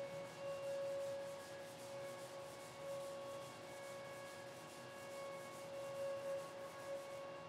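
Light hand rubbing over the bare wooden top of an archtop mandocello, a soft scuffing by fingertips and a small pad. A steady held tone runs underneath it and is louder than the rubbing.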